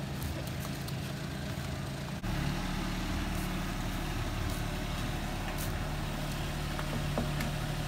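A steady low mechanical hum, like an engine idling, that changes abruptly in tone about two seconds in, with a few faint clicks over it.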